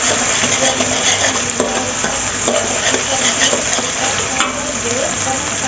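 Eggs sizzling as they fry in an aluminium wok, with a metal spatula stirring and scraping through them and clicking against the wok every second or so.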